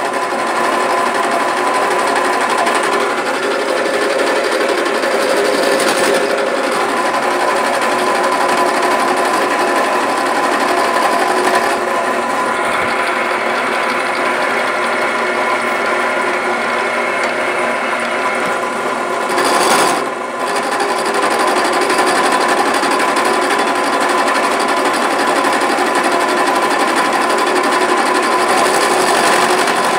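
Drill press running with an end mill in the chuck, milling steel tubing: a steady motor whine over the rough chatter of the cutter against the metal, easing briefly about twenty seconds in. The cut is going hard, which the operator puts down to taking out too much material, too big a bit, or a harder DOM steel tubing.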